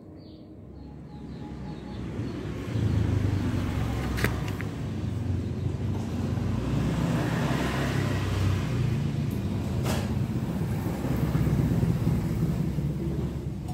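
A motor vehicle engine running steadily. It grows louder over the first three seconds and eases off near the end, with a sharp click about four seconds in and another about ten seconds in.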